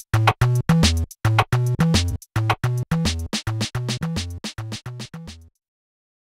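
Electronic music with a drum-machine beat, chopped into quick stuttering hits, cutting off abruptly about five and a half seconds in.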